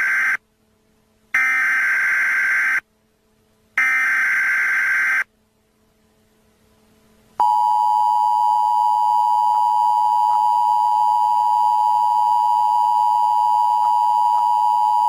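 Emergency Alert System activation tones. First comes the end of one SAME header data burst and two more bursts, each about a second and a half long and a second apart. About seven seconds in, the steady two-tone EAS attention signal (853 and 960 Hz) starts and holds for about eight seconds, then cuts off.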